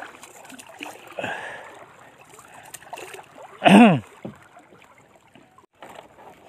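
Water splashing and lapping against the hull of a small wooden outrigger canoe under tow. About three and a half seconds in there is one brief, loud pitched sound that rises and falls.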